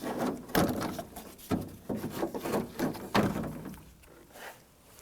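Door latch and exterior handle mechanism clunking and rattling against the inside of the car door shell as it is worked out, a run of irregular knocks that dies down after about three and a half seconds.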